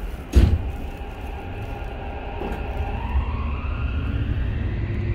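Toei 5500 series train's Mitsubishi SiC VVVF inverter and traction motors, heard inside the passenger car as it pulls away from a station: several tones rise steadily in pitch over a low running rumble as it accelerates. A loud thump comes about half a second in.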